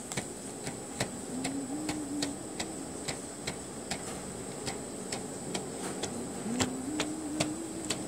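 Clear slime being stretched and squeezed between fingers, giving a string of sharp little clicks and pops, about two or three a second.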